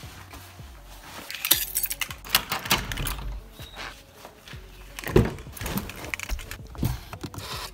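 Handling noise from a person on the move: irregular rustling, clicks and knocks as slippers go on over a tiled floor and he climbs into a car.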